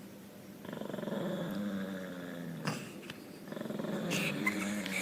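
Dogs growling at each other: two long, low growls, the second starting about three and a half seconds in.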